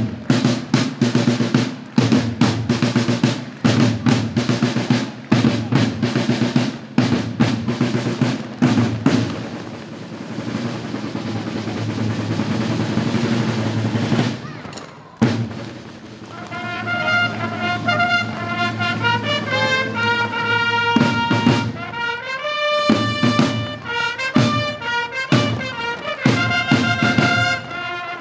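Drums playing a rhythm of strokes and a sustained drum roll, with a short break about halfway through. Brass instruments then join in with a melody over the drums.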